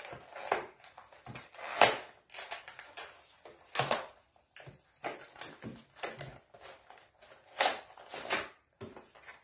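Cardboard packaging of a screen protector set being pulled open and handled by hand: irregular rustling, scraping and tearing of card and paper, with sharper bursts about two, four and eight seconds in.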